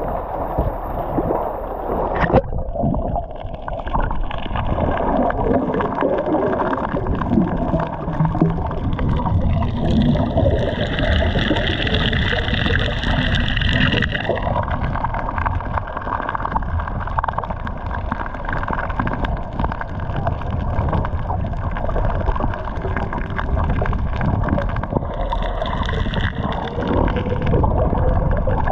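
Sea water sloshing and gurgling around the camera, a steady dense wash that changes tone about two seconds in.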